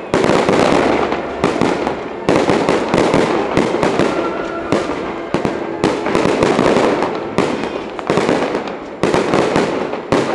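Aerial fireworks shells bursting in quick succession: loud sharp bangs several a second, with crackling between them.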